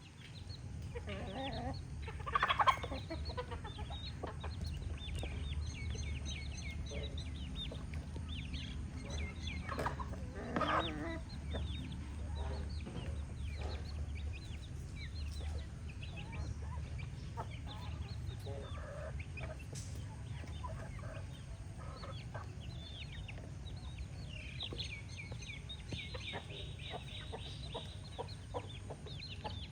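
Hens clucking continuously while feeding, with many short calls and a couple of louder calls, a few seconds in and again about ten seconds in.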